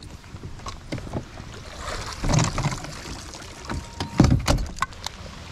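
Knocks and thumps on a bass boat's deck as an angler moves about, with two louder thumps about two and four seconds in, over a haze of rain.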